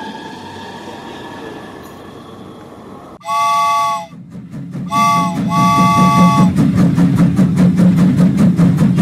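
Battery toy steam locomotive sounding its electronic whistle: a steady three-note chord, one long blast a few seconds in, then a short and a longer toot. After the whistle comes a fast, even chuffing rhythm, the toy's running sound effect.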